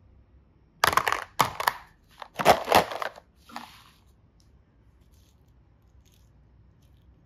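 Small hard plastic boxes clattering and scraping against each other and a plastic basket as they are handled, in several short bursts with sharp clicks over the first few seconds.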